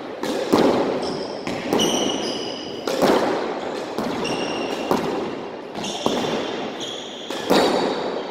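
Squash rally: the ball is struck by rackets and smacks off the court walls every second or so, each hit echoing in the court, with sneakers squeaking on the wooden floor between hits.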